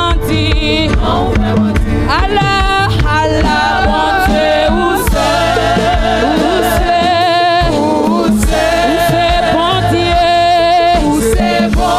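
Gospel worship song: a lead female singer with backing women's voices singing into microphones, over a band accompaniment with a steady beat.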